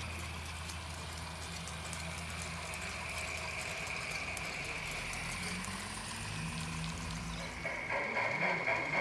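Large-scale model steam locomotives running on a garden railway, giving a steady low running hum over a steady high drone. Near the end this changes to a rhythmic chuffing of about three beats a second.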